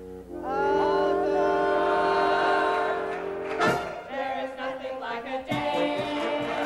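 A group of voices singing together on stage, first holding long notes as a chord, then moving through livelier wavering lines. A sharp hit lands about three and a half seconds in, with a few lighter taps near the end.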